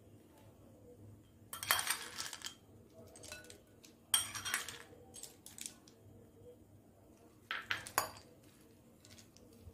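Metal cutlery clinking and scraping against a small ceramic bowl and a glass mixing bowl as ingredients are scraped in and the salad is stirred. It comes in four short bursts of clatter, the loudest about four seconds in.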